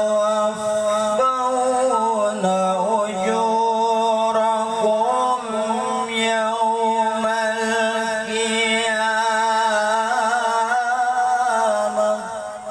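Solo male Quran recitation in melodic tilawah style: one long, ornamented phrase held almost without a break, the pitch winding up and down, fading out near the end.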